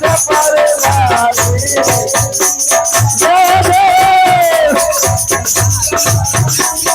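Devotional music: a wavering melody line over a steady drum beat and rattling shaker percussion.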